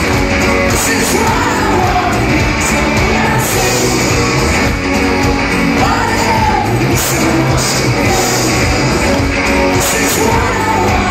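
Live pop-rock band playing loudly, with electric guitars, keyboards, bass and drums, and a woman singing lead, echoing in a large hall.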